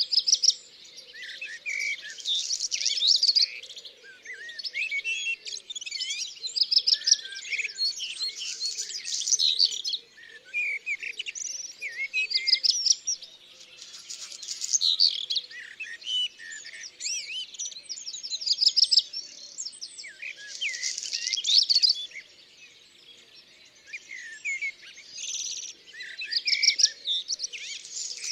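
Small songbirds singing and chirping, quick high phrases and trills overlapping almost without a gap, with a short lull near the end.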